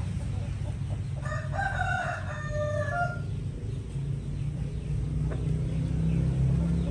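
A rooster crowing once, a call of about two seconds, over a steady low rumble.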